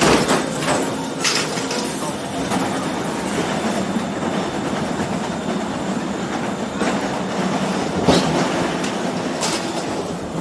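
Chairlift terminal machinery running steadily, the chairs and rollers clattering through the station, with a few sharp clacks.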